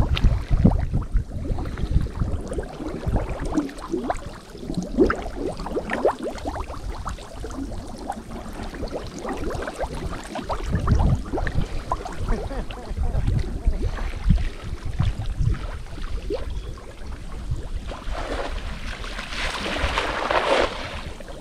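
Shallow muddy water sloshing and splashing in irregular strokes, as people wade through it, with a louder stretch of splashing near the end.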